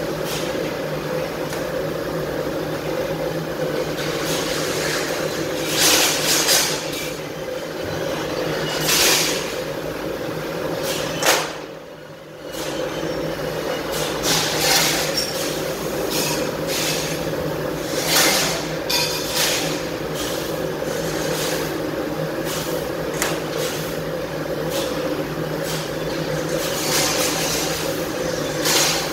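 Steady hum of factory machinery, broken by intermittent clatters and scrapes of cut 1.6 mm sheet-metal pieces being handled and stacked by hand.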